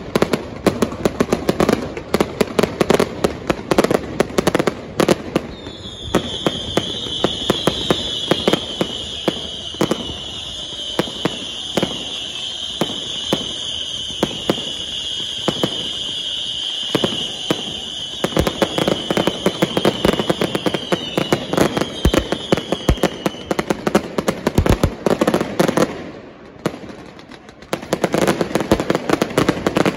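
Fireworks going off: a rapid, continuous run of bangs and crackling from firecrackers and bursting aerial shells. A steady high whistling tone runs through the middle stretch for about fifteen seconds, and the bangs ease off briefly near the end before picking up again.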